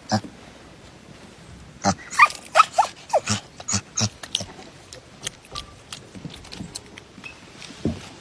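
A dog vocalizing: a quick run of short calls that glide in pitch about two seconds in, among scattered clicks and knocks.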